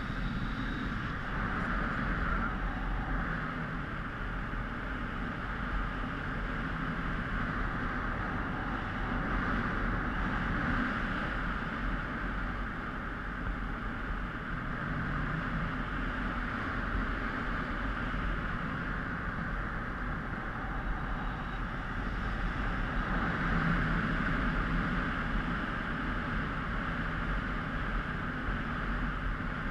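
Steady rush of wind on a helmet-mounted GoPro's microphone during paraglider flight, swelling slightly a couple of times.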